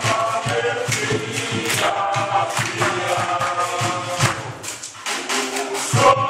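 A group of adults singing a chant together, with sharp hand claps at intervals; the singing eases off briefly past the middle and comes back strongly near the end.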